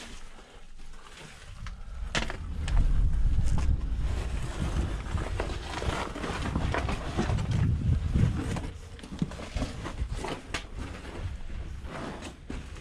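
Wind buffeting the microphone in gusts, a heavy uneven rumble that swells about two seconds in and eases off in the last few seconds, with scattered sharp clicks and knocks, like footsteps on loose stones.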